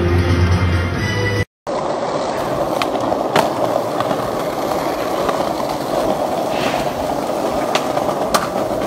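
Background music for the first second and a half, then a skateboard's wheels rolling steadily over rough concrete, with three sharp clacks along the way.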